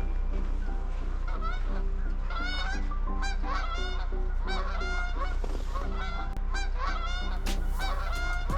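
A flock of Canada geese honking, many short calls overlapping continuously, over a steady low hum.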